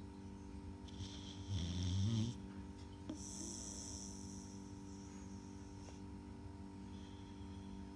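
A dog snoring: one loud, low snore about a second and a half in, rising in pitch as it ends, with softer breathing around it over a steady electrical hum.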